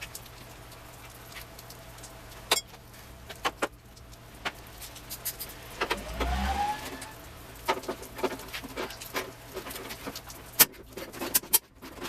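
Scattered sharp metallic clicks and clinks of hand tools working on a fender bolt, more frequent in the second half. About six seconds in there is a short rising squeal with a low thump.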